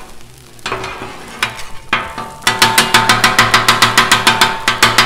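Two metal griddle spatulas chopping scrambled eggs on the Blackstone griddle's steel flat top. A few scattered strikes and scrapes come first, then from about halfway a fast, even clacking of the blades on the steel, about six strokes a second, over a faint sizzle.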